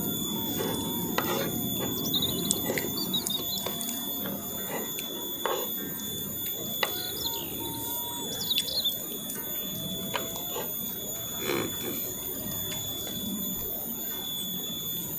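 Spoons and forks scraping and clicking against a metal serving tray, with chewing, over a steady high-pitched whine. Now and then a short bird chirp can be heard.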